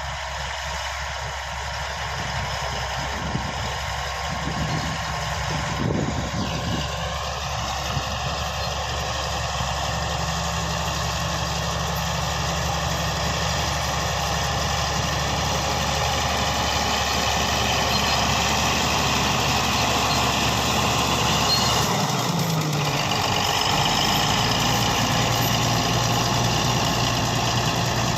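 Komatsu D155A bulldozer's diesel engine running steadily, growing gradually louder. Its pitch rises a few seconds in and shifts again about three-quarters of the way through.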